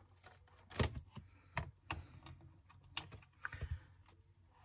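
Irregular small clicks and taps of wires being fitted into the terminals of a plastic electronics kit board.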